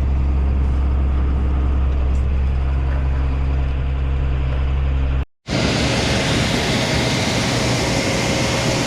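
John Deere tractor engine running with a steady low drone, heard inside the cab. About five seconds in the sound cuts off, then a noisier, hissier machine sound with a faint steady whine takes over.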